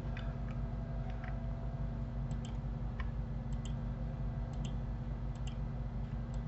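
Computer mouse button clicking as objects are shift-clicked one by one: a dozen or so short, light clicks, several coming in close pairs, over a steady low hum.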